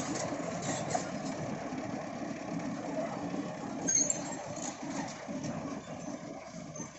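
Heavy excavator's diesel engine running steadily, with a brief high squeak about four seconds in.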